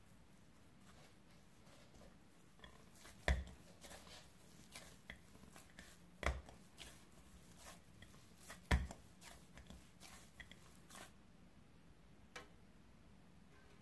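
Hands kneading pie dough in a glass bowl: quiet rustling and small clicks, with three dull knocks about three, six and nine seconds in.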